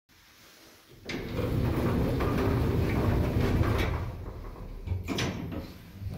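Elevator car noise: a loud low rumble with clicks and knocks starting about a second in, easing off after about four seconds, then a sharp clunk near five seconds.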